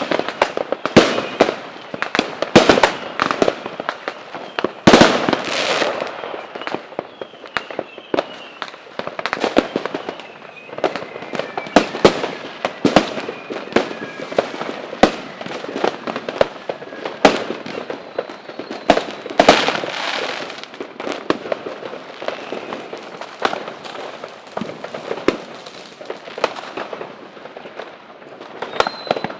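Fireworks going off: a dense, irregular string of sharp bangs and crackling bursts, with faint falling whistles in places.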